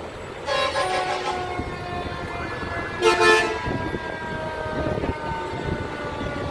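Fire engine horn blasting twice: a blast of about a second starting half a second in, and a louder, shorter blast about three seconds in. Between and after the blasts, a siren tone slides slowly down in pitch.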